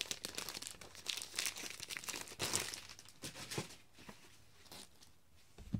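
Plastic packaging crinkling and tearing as it is pulled off a black storage box, busy for the first few seconds and then quieter, with a low thump near the end.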